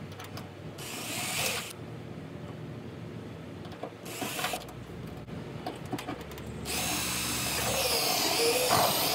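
Hitachi cordless drill running in three bursts against the aluminum toolbox frame: a short one about a second in, a brief one around four seconds, and a longer one of over two seconds near the end, its pitch wavering under load.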